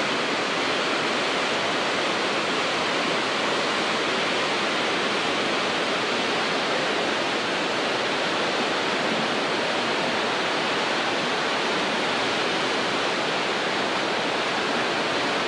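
Steady rush of a whitewater cascade tumbling over boulders, an even, unbroken noise of falling water.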